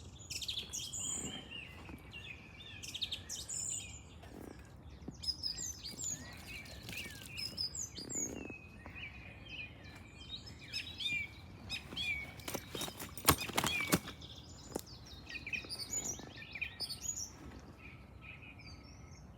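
Many songbirds chirping and singing, with a few sharp clicks or knocks, the loudest a pair a little after halfway.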